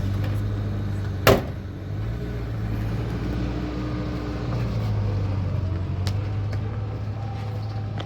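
An engine running steadily with a low hum, with one sharp click about a second in.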